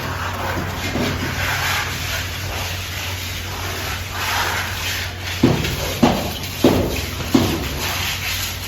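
Plastering work: a scraping haze that swells and fades over a steady low hum, then four sharp knocks about two-thirds of a second apart, a little past halfway.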